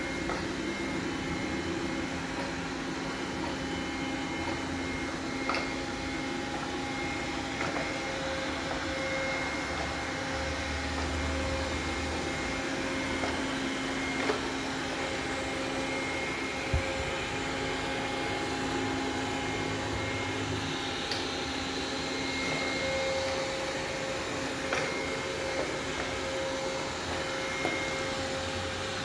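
Xiaomi robot vacuum-mop running steadily, its motor and brushes giving an even whirring hum with a few held tones, broken by a handful of sharp clicks.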